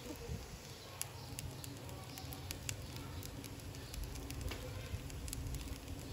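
Shrimp fried rice sizzling in a honeycomb-textured steel frying pan, a steady crackle with scattered sharp pops, over a low rumble.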